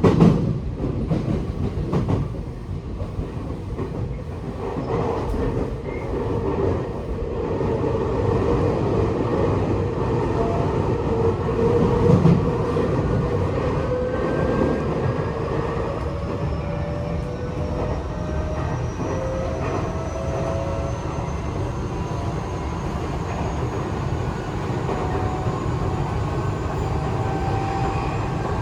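Tokyo Metro 8000-series subway train running, heard from inside the car: a low rumble with wheels knocking over rail joints, while the traction motors' whine climbs slowly in pitch as the train gathers speed.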